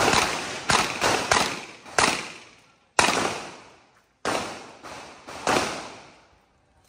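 Revolver shots fired in a steady string, about seven in all, roughly half a second to a second apart, each ringing out in a long echo.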